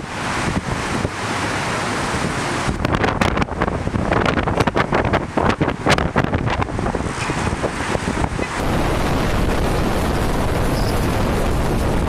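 Storm wind buffeting the microphone over heavy surf breaking on shoreline rocks, with crackling gusts in the middle. About three-quarters of the way through it changes to a steadier, even rush of wind.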